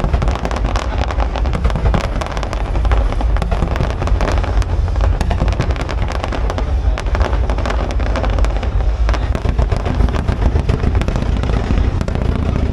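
A fireworks display going off continuously: a dense stream of sharp cracks and crackling over deep booms.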